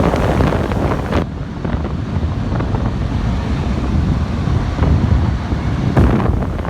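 Air blast from a 12-inch high-velocity floor fan heater running in fan mode, buffeting the microphone as loud, deep wind noise. The higher hiss drops away about a second in and returns near the end.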